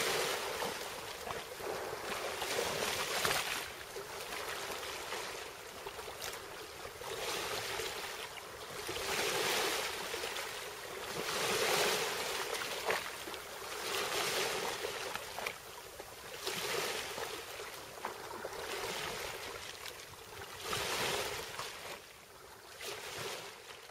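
Sea waves washing in, swelling and fading every two to three seconds, with no low rumble.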